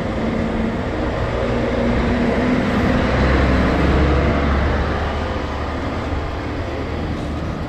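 Steady road and traffic noise heard from an open-sided shuttle cart riding along a street beside a bus and other cars. A low rumble swells about three seconds in and eases off again.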